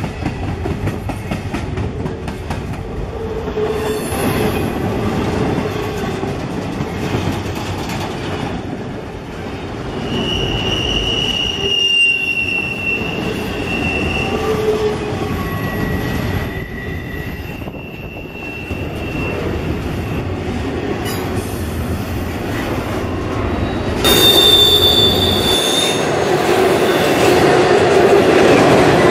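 Intermodal freight train's well cars rolling past close by: a steady, loud rumble of steel wheels on rail, with high-pitched wheel squeals coming and going through the middle and again near the end. The rumble gets louder about five seconds before the end.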